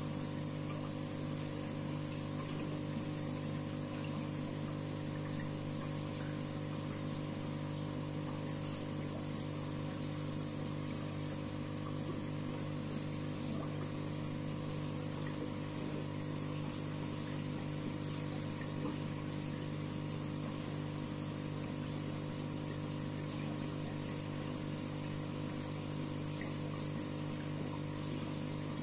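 Aquarium pump running with a steady hum of several low tones, over a soft wash of moving water with faint small ticks.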